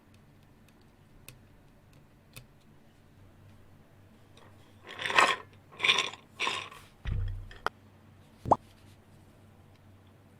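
Small keyboard parts being handled on a desk: a few faint clicks, then three brief rustling scrapes, a low thump and a sharp plastic tap that rings briefly.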